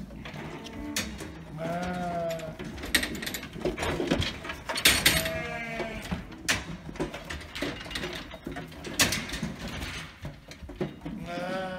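Ewes bleating three times: about two seconds in, around five seconds, and again near the end. Sharp knocks and clatters come in between, as the sheep push through a metal sorting race.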